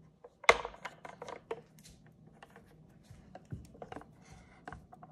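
Cuisinart sandwich grill being unlatched and its lid swung open: a sharp click about half a second in, followed by a run of smaller clicks and knocks from the latch and hinged lid.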